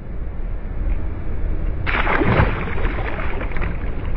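A released bass splashing at the surface as it kicks away, starting about two seconds in and lasting nearly two seconds, over a steady low rumble.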